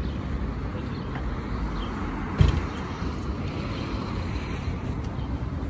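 Street traffic: cars passing on a road in a steady rumble, with one sharp knock about two and a half seconds in.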